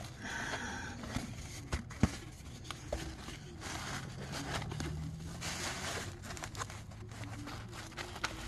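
Paper and plastic wrapping rustling and crinkling as a rolled diamond-painting canvas is unwrapped and unrolled by hand, with a sharp tap about two seconds in.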